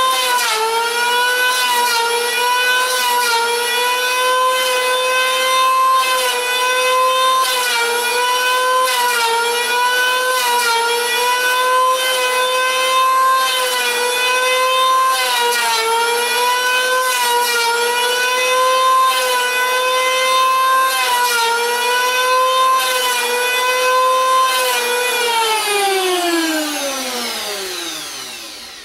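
Small corded electric hand planer running with a steady high whine, its pitch sagging every second or two as the blades bite into a wooden block on each pass. Near the end it is switched off and winds down with falling pitch.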